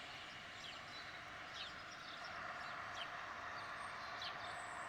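Faint birds chirping, giving a short, quick, falling chirp about every second over a quiet, even outdoor background hiss.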